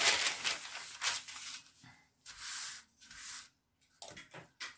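Thin pattern paper rustling and crinkling as it is spread and smoothed by hand, in several short bursts with brief pauses between them, and a few light clicks near the end.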